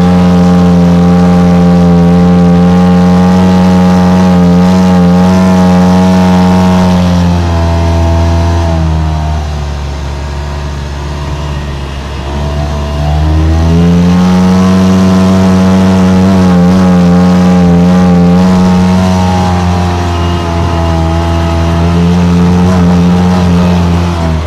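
Vehicle engine working hard at steady high revs while driving over sand dunes. About a third of the way in it eases off to a lower, quieter note for a few seconds, then revs back up and holds high again.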